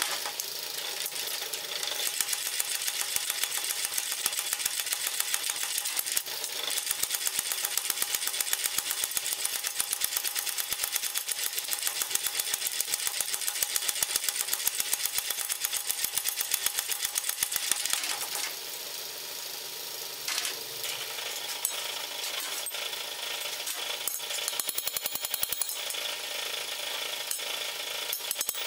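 Mechanical power hammer pounding a red-hot flat iron bar with rapid, even blows, drawing it out. About two-thirds of the way in the hammering stops, leaving quieter, scattered knocks and metal sounds.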